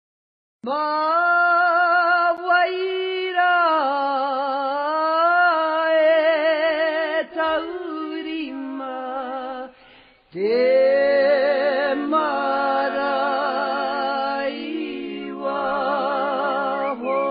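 Singing as background music: a voice holding long, wavering notes in slow phrases. It comes in about half a second in, breaks off briefly near the middle, then goes on.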